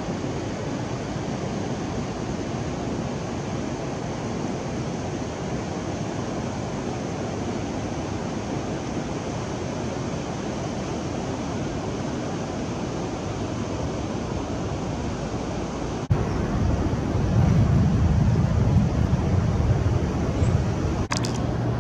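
Water pouring over a low river weir: a steady rush of white water. About sixteen seconds in it cuts off abruptly and a louder low rumble takes over.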